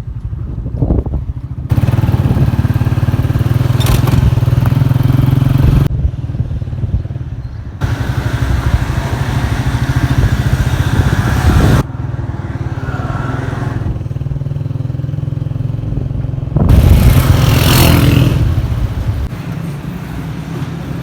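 Motorcycle engine running while riding along a road, with wind and road noise; the sound jumps abruptly in level several times.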